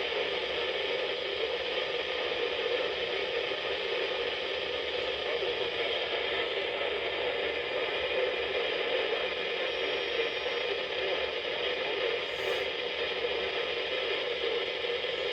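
Steady hiss of radio static from a radio receiver with no broadcast audio coming through.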